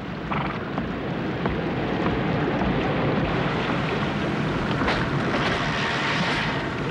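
Storm sound effect of rushing floodwater with wind and rain, as a wooden bridge breaks up. A few faint cracks are heard over it, the clearest about five seconds in.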